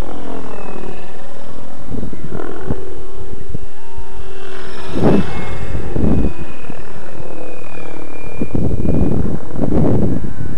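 Electric 700-size Rave 90 RC helicopter on a 6S setup flying overhead at low head speed: the rotor whirs while a thin motor and gear whine glides down and back up in pitch as it passes. Heavy low rumbling gusts hit the microphone about halfway through and again near the end.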